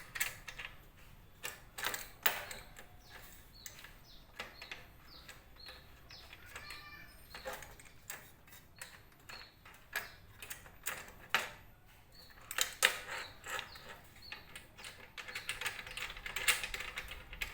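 Irregular clicks and knocks of hand tools and parts being handled while loosening fittings on a homemade table saw mount.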